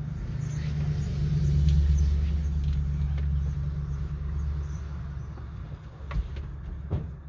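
A passing vehicle's low engine rumble, swelling to its loudest about two seconds in and then slowly fading. Two small clicks sound near the end.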